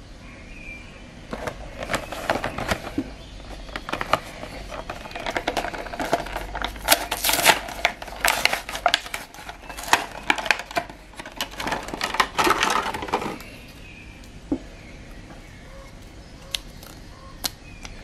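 Clear plastic blister packaging and a plastic dart sleeve crinkling and crackling as they are torn open by hand: a long run of dense crinkling that stops about thirteen seconds in, followed by a few separate clicks.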